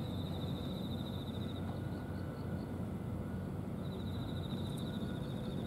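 Steady outdoor ambience: a low, even rumble, with a high, rapidly pulsing trill that stops after about a second and a half and comes back near the end.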